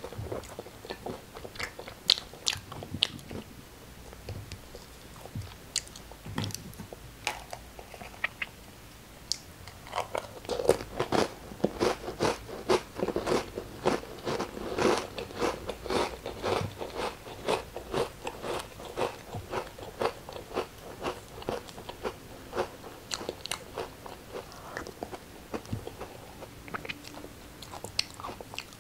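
Crunchy crackers bitten and chewed close to the microphone. Separate crunches come at first, then a long run of quick, dense crunching through the middle, easing off toward the end.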